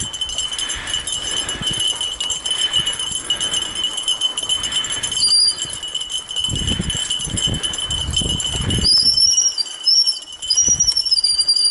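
Fat bike riding over a dirt forest trail behind harnessed dogs: continuous jingling and rattling, with heavier knocks about six to nine seconds in and a high wavering squeal over the last few seconds.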